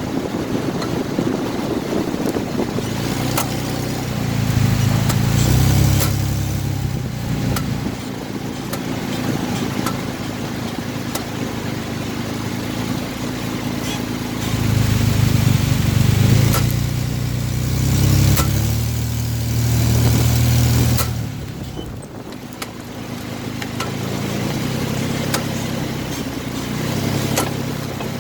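Car engine running under way, twice swelling louder and rising in pitch as it pulls, with sharp knocks at irregular intervals: a knocking the owner traces to the crankcase, felt together with a push while driving.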